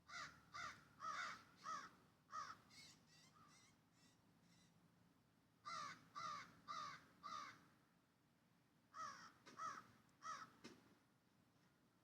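A bird calling in three bouts of four or five repeated calls each. The first bout trails off into quicker, fainter calls.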